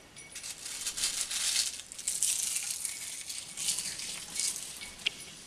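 Fresh curry leaves dropped by hand into hot coconut oil in a wok, spluttering and crackling in several surges as more leaves go in.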